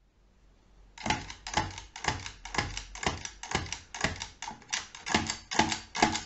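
Schubert DRV hand-cranked pinwheel calculator clacking in a rapid, even series, about three clacks a second, starting about a second in. The carriage is being stepped along its positions with the shift lever beside the drive crank.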